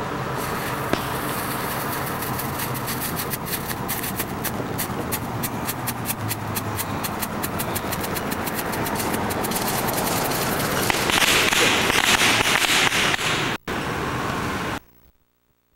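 Consumer ground firework fountain burning on pavement: a steady hiss full of rapid crackling pops, growing louder about 11 s in, then cutting off abruptly near the end.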